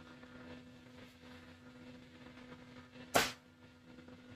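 Two AC contactors dropping out together with one sharp clack about three seconds in, as the temperature controller's setpoint is turned down below the reading and its output switches the coils off.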